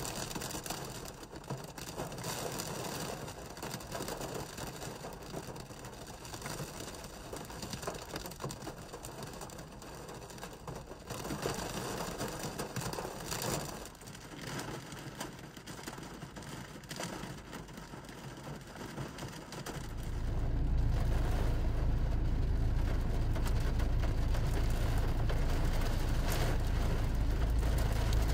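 Rain pattering on a car's windscreen and roof, with scattered louder drops. About two-thirds of the way in, a loud, steady low rumble sets in and stays.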